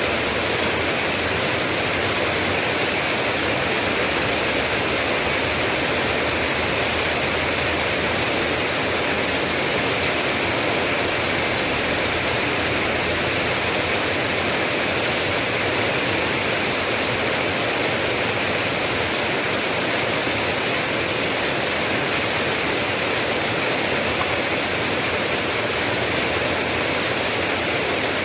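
Steady, heavy rain: an even, unbroken hiss with no single drops, thunder or other events standing out.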